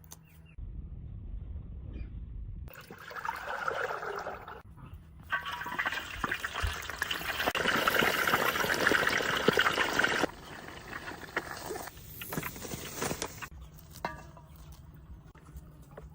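Water rushing in several stretches, loudest from about five to ten seconds in, then cutting back to a quieter trickle with small clicks.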